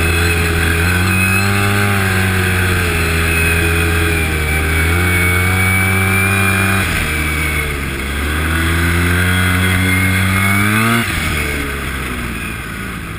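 Arctic Cat Z1 Turbo snowmobile's turbocharged four-stroke three-cylinder engine under hard throttle. Its pitch climbs and levels off, dips about seven seconds in, then climbs steeply again before dropping sharply about eleven seconds in and fading as the sled slows.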